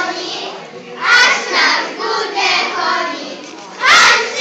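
A group of children singing together, with a louder, shout-like burst near the end.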